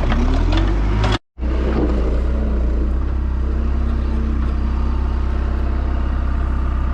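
Skid steer engine running steadily, with a rising whine and a few clicks in the first second; the sound cuts out for a moment about a second in, then the engine drone carries on unchanged.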